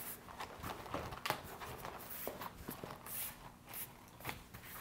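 Faint scattered taps and short plastic rustles as the vinyl vacuum bag's open end is sealed, the blue closure rod pressed along its edge.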